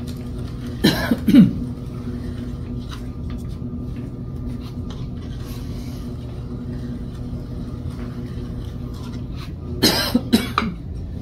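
Electric potter's wheel motor humming steadily as the wheel spins during trimming. Someone coughs about a second in and again near the end; the coughs are the loudest sounds.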